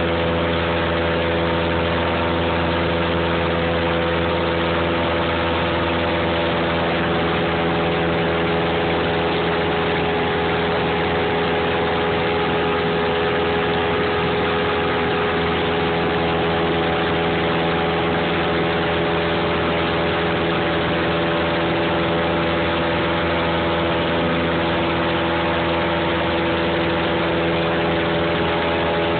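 Aircraft engines heard from inside the cabin during the climb after take-off: a steady drone with several held tones, unchanging throughout.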